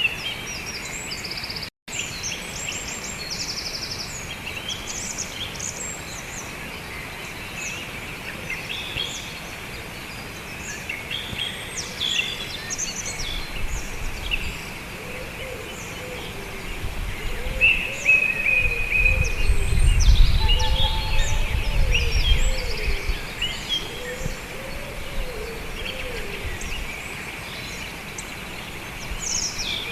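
Several birds chirping and singing, while a low rumble of unknown origin swells up about halfway through, is loudest for a few seconds, then fades again.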